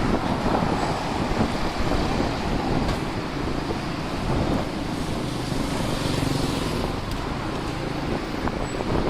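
Strong wind buffeting the microphone over city street traffic, with a road vehicle passing around the middle.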